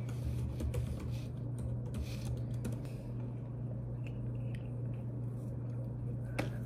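A steady low hum with light rustling and a few sharp clicks from hands handling papers and glasses on a desk, the sharpest click about six and a half seconds in.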